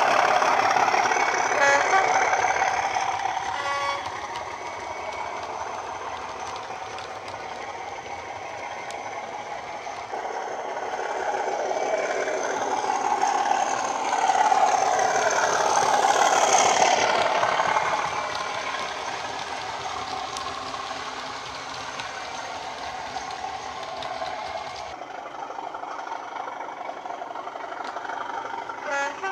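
Bachmann Class 37 model locomotive's Loksound Select sound decoder playing a Class 37 diesel engine sound through an upgraded megabass speaker under the roof fan. The engine note is loud as the loco passes close, drops after a few seconds, then swells again with rising and falling pitch from about a third of the way in before settling lower.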